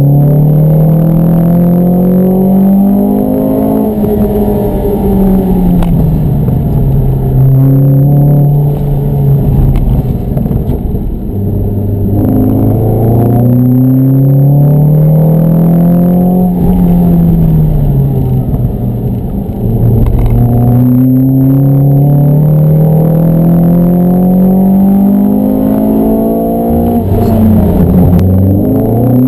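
Mountune MR200-tuned Ford Fiesta ST's four-cylinder engine, heard from inside the car, revving hard under acceleration during a hill climb run. Its pitch climbs through each gear and drops back at the gear changes and lifts, several times over.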